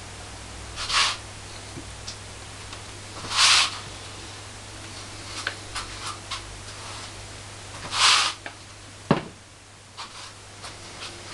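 Kitchen handling noises of pizza topping. Three short scraping rustles come about one, three and a half and eight seconds in, with light clicks of a spoon and sauce bowl in between. A sharp knock comes about nine seconds in, all over a steady hiss.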